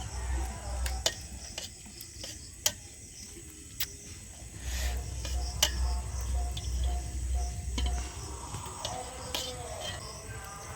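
Background music with a low pulsing beat that drops out for a few seconds and comes back, with several sharp clicks over it.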